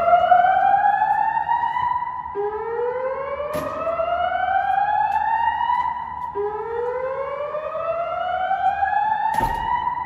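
Fire alarm speaker-strobes (System Sensor SPSR) sounding the slow-whoop evacuation tone between the recorded voice messages. Each whoop rises steadily in pitch for about four seconds and then restarts low, three in a row. Two brief knocks come partway through and near the end.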